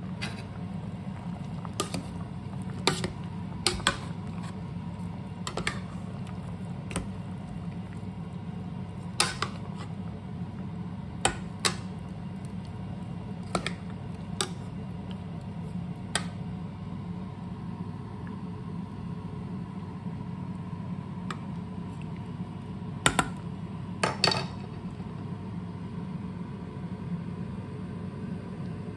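A porcelain ladle clinking and scraping against a stainless steel pot while stirring thick gravy with meat and vegetables: about fifteen sharp clinks, scattered through the first half, with another cluster near the end. Under them runs a steady low hum.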